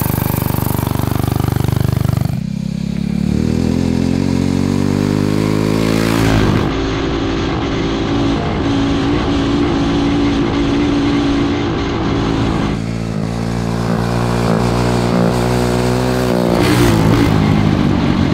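Tillotson 225 single-cylinder racing engine in a street bike pulling away about two seconds in, revs climbing, with a brief break as it shifts. It then holds high revs on a wide-open speed run, dips and climbs again, and backs off near the end.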